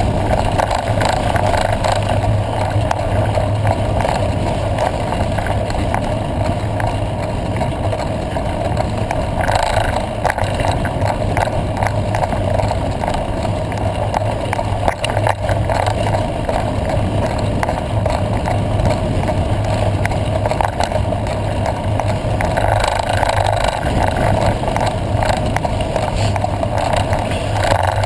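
Steady wind and road noise from a mountain bike riding a dirt road, as heard on the bike camera's microphone. The tyres rumble on the gravel, and the ride brings frequent small rattles and jolts.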